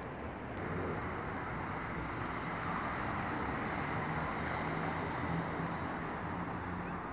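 Steady rumbling noise with a low hum from a motor vehicle running, growing a little louder about a second in.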